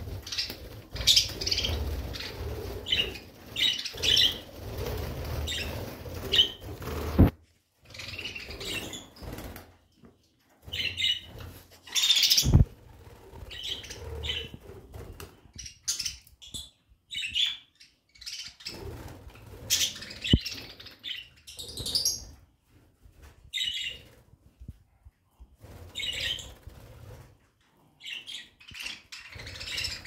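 Several budgerigars chirping and chattering in short bursts, with a low rumble underneath at times and a few sharp clicks.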